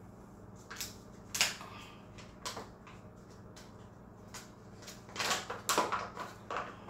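Paper flour bag crinkling and rustling in a few short, sharp crackles as it is handled and its top opened. The loudest crackles come about five to six and a half seconds in.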